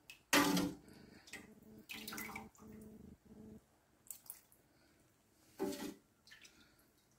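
Thick palm oil sauce poured from a bowl into a pot of pounded cassava leaves, splashing and splatting wetly in several separate pours, the loudest about half a second in and another near six seconds.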